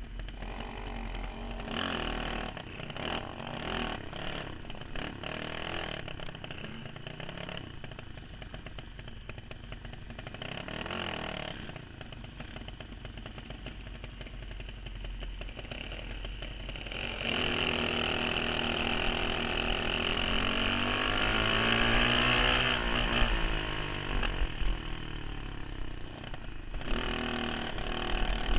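Racing dirt kart's engine heard from onboard at race speed, its pitch rising and falling as the throttle opens and closes. About two-thirds of the way in it gets louder, with repeated up-and-down revs.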